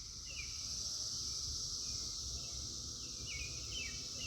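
Cicadas buzzing in a steady high-pitched drone, with a bird giving short falling chirps about once a second.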